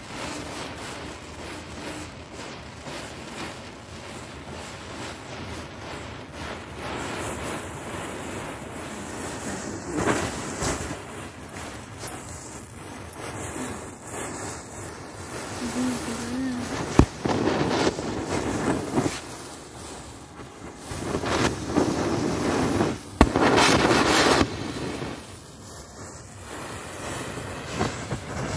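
A chain of matchsticks flaring and burning one after another, with a continuous hissing, crackling rush of flame that grows louder in the second half. Two sharp cracks of small firecrackers going off stand out, about seventeen and twenty-three seconds in.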